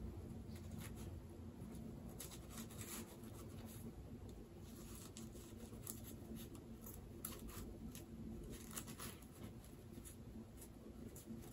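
Faint rustling and crinkling from hands handling packaging, a run of small irregular crackles over a low steady hum.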